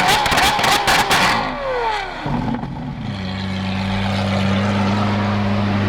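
Car engine revving high, its pitch wavering quickly, with a rapid series of sharp cracks. About a second and a half in, the revs fall away, and it settles into a steady idle.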